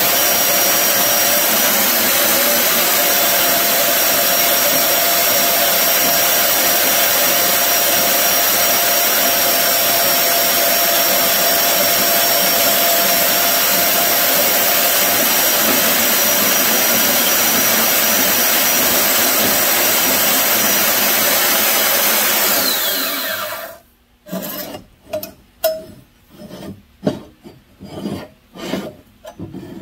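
Benchtop band saw cutting through a cast turbocharger bearing housing: a steady, loud sawing noise with a thin, high whine, which stops a little over 23 seconds in. Then comes a run of short scrapes and knocks as the cut pieces are moved on the metal saw table.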